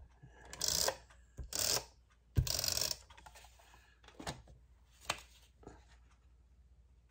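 Paper being handled on a craft table: three short rustling, scraping strokes in the first three seconds, the last starting with a sharp click, followed by a few fainter clicks and taps.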